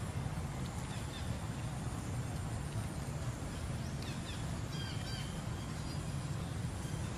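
Outdoor ambience: a steady low rumble, with a few short, high bird chirps about four to five seconds in.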